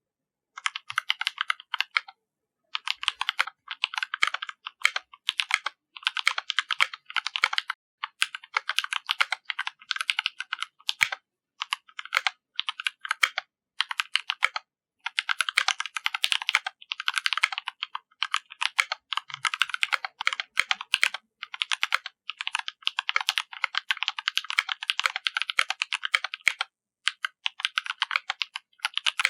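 Typing on a Percent Studios Canoe Gen 2 65% custom mechanical keyboard with GMK First Love keycaps, for a sound test: fast runs of keystrokes broken by brief pauses.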